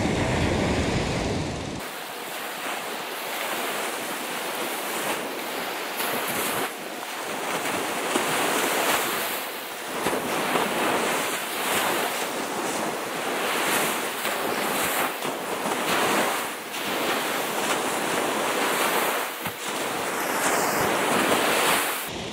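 Surf breaking and washing up a sandy beach, a steady rush of noise that swells and eases, with wind buffeting the microphone.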